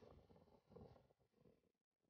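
Near silence: only a faint, uneven low wash of surf breaking on rocks, which cuts out completely for a moment near the end.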